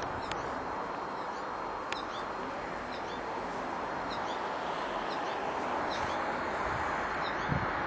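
Faint high chirps of small songbirds, short notes in little groups every second or so, over a steady background hiss.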